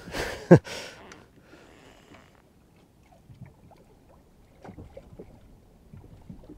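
Water lapping against a small boat's hull, with a brief loud swish about half a second in, then scattered faint clicks and taps.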